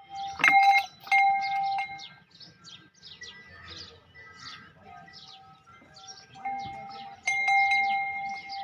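Metal bells ringing: each is struck sharply and rings on with a steady tone, about half a second in, again a second in and once more past seven seconds. Small birds chirp over them.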